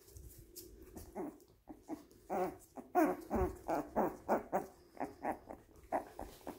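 Yorkie puppy yapping and yipping in play, a run of about a dozen short, high calls at roughly two to three a second, loudest in the middle.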